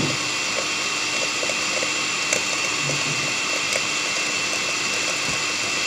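Electric stand mixer running at a steady speed, its beater whisking eggs and sugar in a metal bowl into a cake batter, with a steady whine over the motor noise and a few faint ticks.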